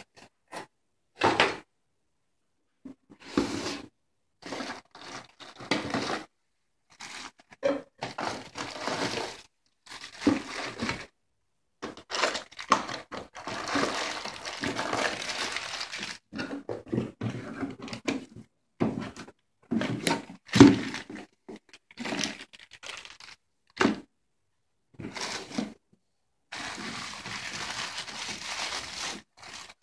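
Unboxing handling noise: cardboard and plastic packaging rustling, crinkling and tearing in irregular bursts, with occasional thunks, and a longer steady rustle near the end.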